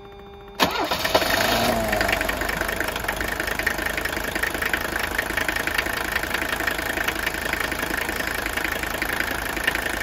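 Mercedes-Benz diesel engine cranking and catching about half a second in, then settling into idle with a steady knock. The knock is injector nailing, typical of these old diesels running on straight diesel fuel.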